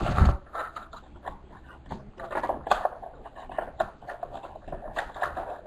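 Foil-wrapped trading card packs crinkling and rustling in short, irregular bursts as they are handled and stacked, with a dull thump right at the start.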